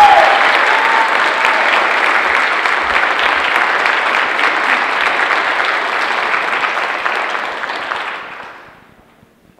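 Audience applauding steadily, dense clapping that dies away about eight seconds in.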